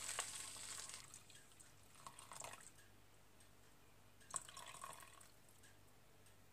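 Chicken stock poured from a glass measuring jug into a hot frying pan of sautéed garlic: a faint sizzle and trickle that dies away over the first second, then a few faint drips and splashes about two and four and a half seconds in.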